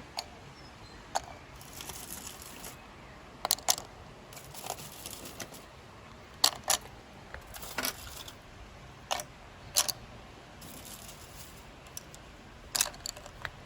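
Kitchenware being handled: scattered sharp clicks and clinks, some with a short ring, the loudest about three and a half, six and a half and ten seconds in, with a few brief spells of rustling like a wrapper.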